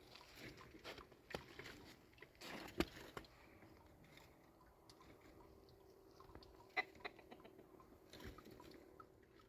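Quiet handling sounds: faint rustles and light knocks, with a sharp click about three seconds in and another about seven seconds in.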